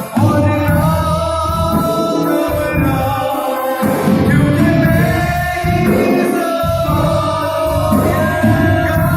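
Worship band playing with a lead singer and voices singing along: sustained sung melody over drums and bass.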